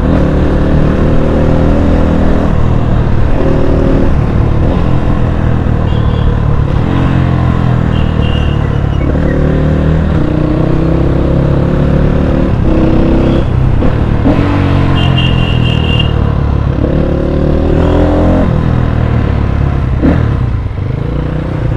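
Dirt bike engine heard up close from the saddle, repeatedly revving up and easing off as it pulls away and slows in low gears, over a steady wind rumble on the microphone. A few short high beeps sound through the middle.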